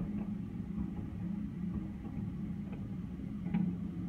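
Distant fireworks bursting: a few faint pops, the clearest about three and a half seconds in, over a steady low rumble.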